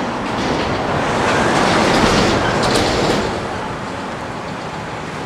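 JR West 115-series electric train rolling slowly over pointwork, its wheels clicking over rail joints; the running noise swells around the middle and then eases.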